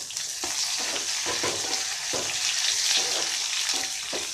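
Chopped tomatoes and onions sizzling in hot oil in a metal kadai, with a wooden spatula stirring and scraping the pan in repeated short strokes.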